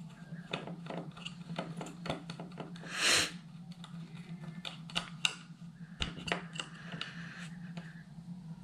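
Small metal parts of an amplifier's case and its screws being handled by hand: irregular light clicks and taps, with one brief louder scrape about three seconds in. A steady low hum runs underneath.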